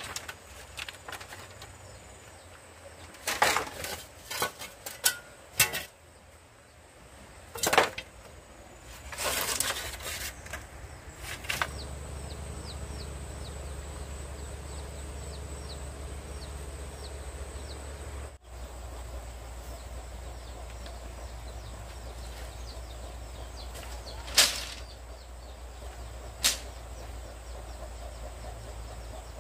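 Irregular sharp knocks and clatters, clustered in the first dozen seconds and twice more later, over a steady low hum that starts partway through. Faint short high chirps come in a quick series for a few seconds.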